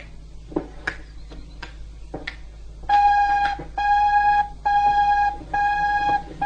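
A few faint knocks, then about three seconds in an electronic telephone starts ringing: a steady beeping tone repeated about four times, each ring just under a second long with short gaps.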